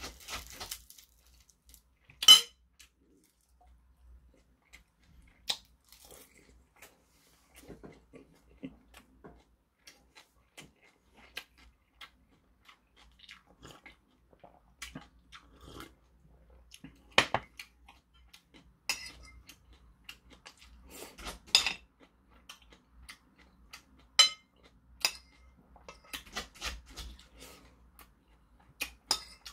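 Close-up eating sounds: chewing and crunching of boiled pork and ponytail-radish kimchi, with sharp clinks of a metal spoon against porcelain bowls every few seconds.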